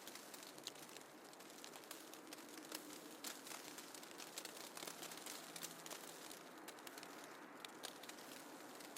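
Snowfall ambience: a faint, steady hiss sprinkled with soft, irregular ticks and crackles.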